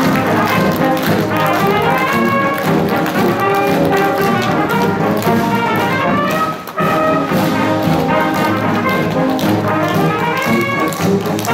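Brass band music playing, with a momentary break about two-thirds of the way through.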